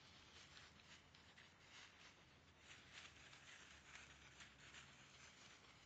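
Faint rustling and crackling of dry fallen leaves as puppies scamper through them, a little louder in short patches about halfway through.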